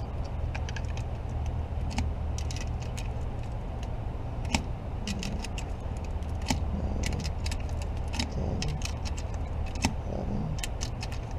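9mm cartridges being pressed one by one into a CZ TS2 pistol magazine: a run of small, irregular metallic clicks, over a steady low hum.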